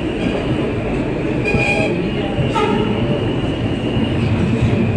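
Alstom R160A subway car heard from inside as it runs through the tunnel toward a station: a steady rumble of wheels on rail, with brief high squeals about one and a half and two and a half seconds in.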